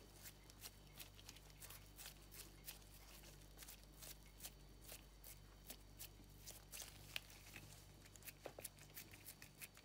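Faint, irregular soft clicks and squishes of gloved hands kneading and pressing a moist bulgur-and-potato dough, over a low steady hum.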